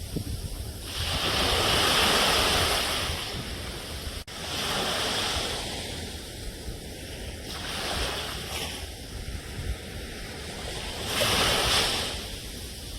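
Sea waves washing onto a shore, the surf swelling and falling away four times over a steady low rumble of wind.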